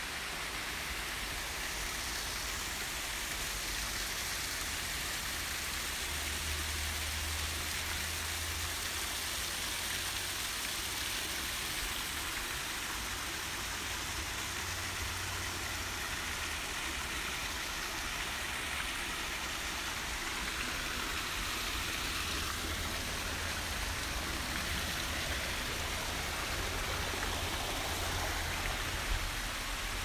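Steady rushing of a large waterfall pouring into a natural pool, with a low rumble that swells and fades underneath.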